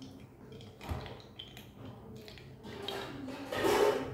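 Drinking juice from a glass jar: soft handling knocks and rustles, then a loud sip near the end as she drinks.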